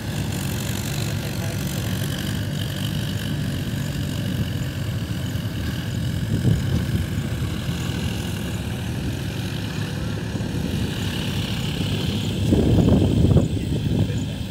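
Tractor diesel engines running steadily as they work a flooded rice paddy, a low drone that swells louder for a second or two near the end.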